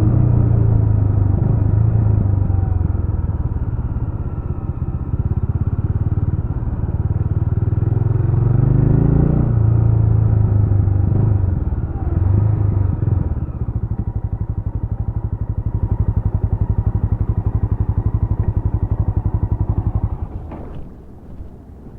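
Jawa RetroTrail 650's single-cylinder 650 cc engine running, its pitch rising and falling with the throttle for the first half. It then settles into a steady, even idle thump and stops shortly before the end, leaving a couple of faint ticks.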